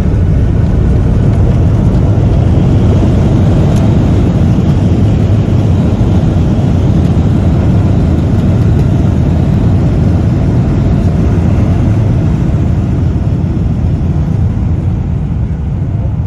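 Loud, steady rumble of a jet airliner heard from inside the cabin, engines and roll noise on the ground after touchdown, easing off a little near the end.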